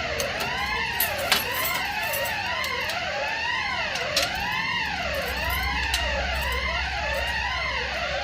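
Bank security alarm siren sounding: an electronic wail that rises and falls about once every two-thirds of a second, with a second overlapping wail, and a couple of sharp clicks about a second in and about four seconds in. The alarm was set off by a fault in the system, not a break-in.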